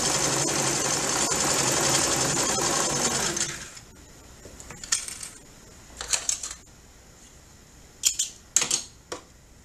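Domestic straight-stitch sewing machine running steadily, stitching a seam through tricoline cotton, until it stops about three and a half seconds in. After it stops come a few short clicks and rustles.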